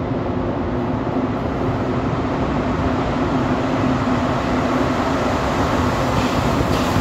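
Rubber-tyred Montreal metro train approaching through the tunnel. It makes a steady rumble with a low hum, growing slightly louder as it nears the platform.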